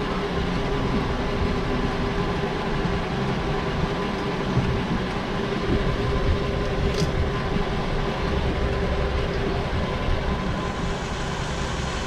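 The Mercedes ML430's 4.3-litre V8 idling steadily, with a faint click about seven seconds in.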